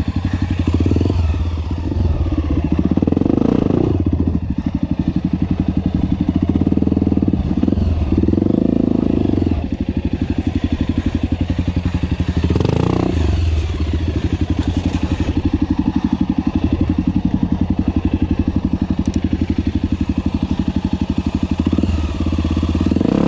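Honda CRF250F's single-cylinder four-stroke engine running at low revs under load, with the revs rising briefly a few times as the throttle is opened.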